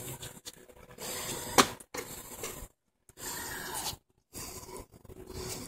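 Sneakers landing on concrete steps in two-footed stair hops: a few sharp knocks, the loudest about a second and a half in, over a steady outdoor hiss. The sound cuts out completely twice for a fraction of a second.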